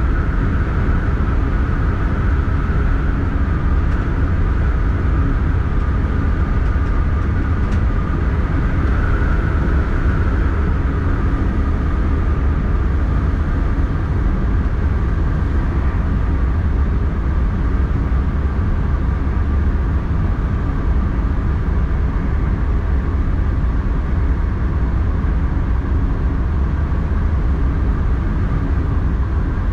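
Steady running noise of an X40 double-deck electric multiple unit, heard from the driver's cab: a deep, even rumble with a steady higher hum above it.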